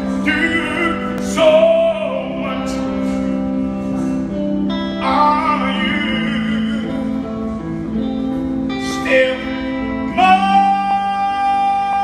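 A man singing in a trained, operatic style over steady sustained instrumental accompaniment, in several phrases. About ten seconds in he holds one long high note.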